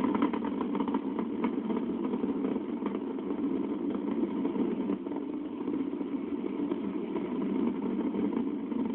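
Space Shuttle Discovery's two solid rocket boosters and three main engines burning during ascent: a steady, dull rocket rumble with some crackle in the first second, muffled by a recording that has lost its high end.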